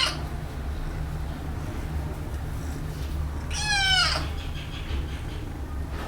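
A kitten meowing: the end of one meow right at the start, then one clear meow about three and a half seconds in that falls in pitch, over a steady low hum.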